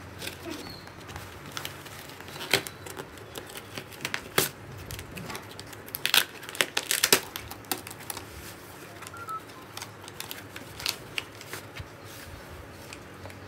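Packing tape and a paper shipping label on a cardboard shipping box being cut with scissors, then peeled and torn off, and the cardboard flaps pulled open: irregular sharp rips, snaps and crinkling, the loudest a cluster about six to seven seconds in.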